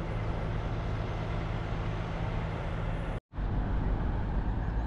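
Steady road and engine noise of a car being driven, with a low steady hum; it cuts out for a moment a little after three seconds in and then carries on the same.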